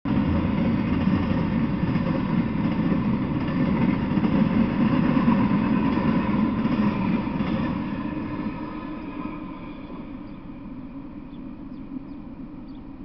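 Freight train of intermodal well cars and flatcars rolling past on the track: a steady wheel-on-rail noise that fades away from about eight seconds in as the end of the train goes by.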